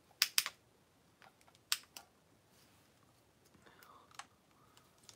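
Hard plastic parts of a Power Rangers Dino Fury Zord toy clicking and snapping as they are handled and fitted together: two sharp clicks in quick succession at the start, another just under two seconds in, and one a little after four seconds, with fainter handling ticks between.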